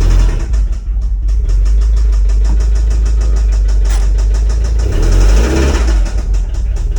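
1991 Toyota MR2 Turbo's 3S-GTE four-cylinder engine running with a rapid, even tapping, and it gets briefly louder about five seconds in. The tap sounds like an engine tap, but the owner puts it down to something come loose in the clutch.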